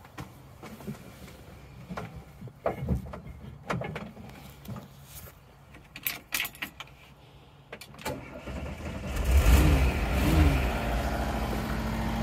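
A few clicks and knocks, then about eight seconds in the 1976 VW Kombi's 2-litre air-cooled flat-four engine cranks and starts, is revved twice and settles into a steady idle.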